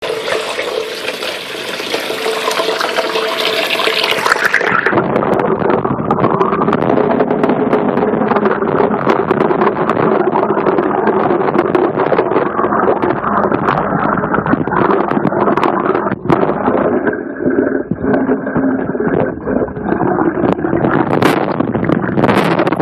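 Tap water pouring into a steel bowl of water, heard through a waterproof microphone lying underwater: a steady, dense rushing and bubbling that turns duller about four seconds in.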